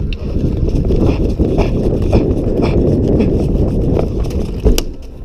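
Running footsteps thudding about twice a second, with loud rumbling and jostling from the player's gear rubbing on a body-worn camera's microphone, and a sharper knock near the end.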